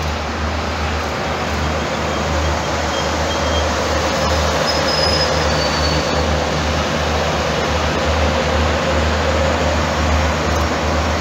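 X72500 diesel multiple unit moving slowly past at low speed: a steady, deep diesel engine rumble with wheel and rail noise, growing slightly louder.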